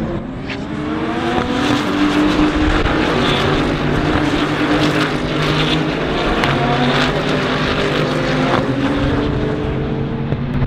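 A pack of GT3 race cars running together through a corner, many engines overlapping with their notes rising and falling. The sound grows louder about a second in as the field arrives.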